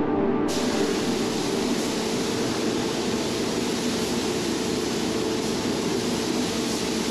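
Steady hiss of rushing air in a paint spray booth during a spray job, from the air-fed spray gun and the booth's airflow.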